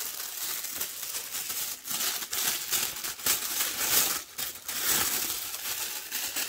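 Plastic-free paper packaging being torn open and crumpled by hand: a continuous irregular crinkling and crackling, with sharper rips here and there.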